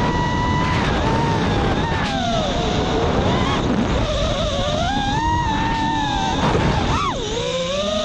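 Whine of an FPV quadcopter's four EMAX ECOII 2306 brushless motors spinning HQProp Ethix P3 propellers, its pitch sliding up and down with the throttle over a rush of wind and prop wash. About seven seconds in the pitch dips sharply, then climbs steeply as the throttle is punched again.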